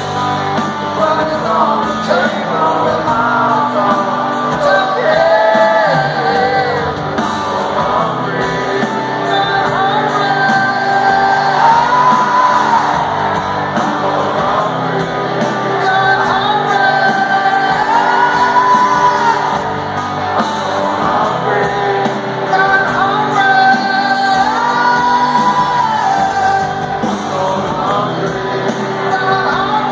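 Live rock band and singer performing in an arena, heard from within the audience with the hall's echo, and the crowd shouting along.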